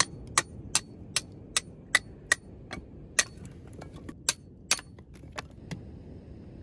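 Sharp metallic strikes in a steady rhythm, about two and a half a second, each ringing briefly; they stop a little before five seconds in, with a few lighter taps after, over a steady low rush of noise.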